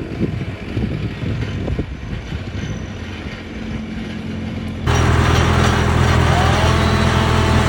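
A motor engine running, uneven at first, then a louder, steady drone that starts abruptly about five seconds in.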